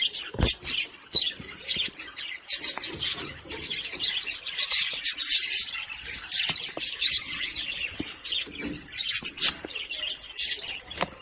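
A flock of small pet parrots chattering with rapid, overlapping high-pitched chirps and squeaks, with a single knock about half a second in.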